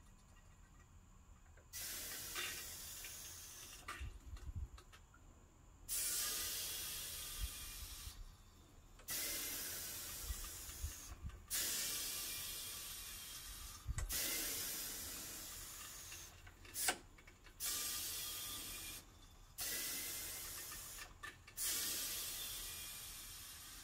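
Compressed air hissing in repeated bursts as a lever valve cycles an air-operated shop press. Each hiss starts suddenly and fades away over a second or two, about eight times, with a few low knocks from the press between them.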